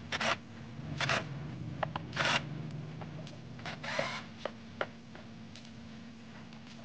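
Cordless drill-driver turning the screws of a power-amplifier board, in short whirring bursts about a second apart with small clicks between, then falling quieter in the second half.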